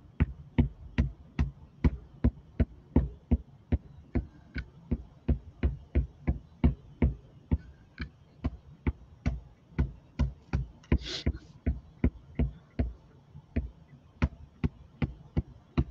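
Plastic glue bottle's nozzle tapping down on a canvas board as dots of glue are set, about three sharp taps a second, with a short hiss about eleven seconds in.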